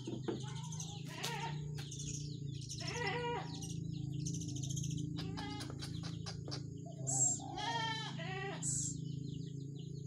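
Young hand-raised birds calling while being fed: repeated harsh, bleating cries mixed with short high chirps, over a steady low hum.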